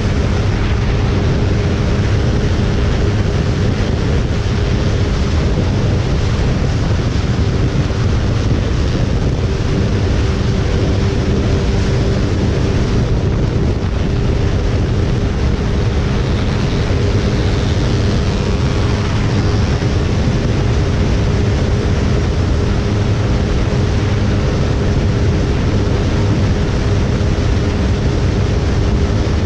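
Motorcycle engine held at a steady high rev at about 160 km/h, a constant drone under heavy wind rush on the microphone.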